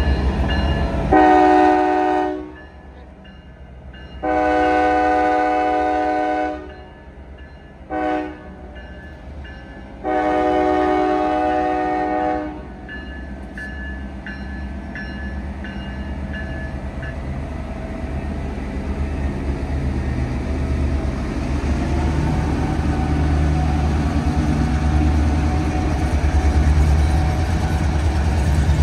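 Locomotive horn blowing the grade-crossing signal, long, long, short, long, which warns that the train is nearing a road crossing. After it, the low rumble of the train grows steadily louder as it approaches.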